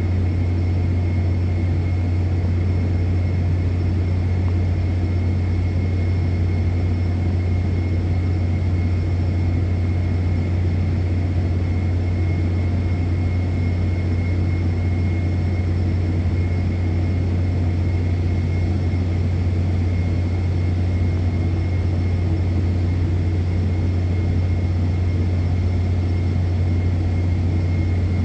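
Steady, loud industrial drone on an offshore oil and gas installation, a deep low hum that never changes, with a faint thin whine held above it.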